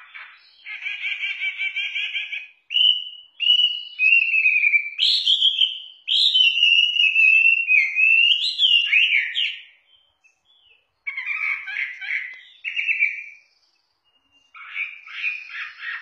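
Hwamei (melodious laughingthrush) singing: a run of loud, clear whistled and warbling phrases. The song breaks off briefly twice in the second half, then carries on.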